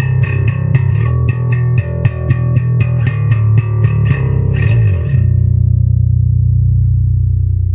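JCraft JB-1 five-string electric bass playing a quick run of plucked notes, about three or four a second. About five seconds in, a low note slides down and is held, ringing on steadily.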